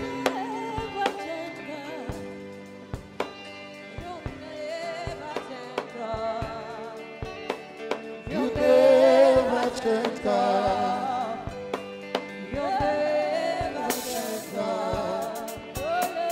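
Gospel worship music: voices singing over instrumental backing with a steady percussive beat, growing louder about halfway through.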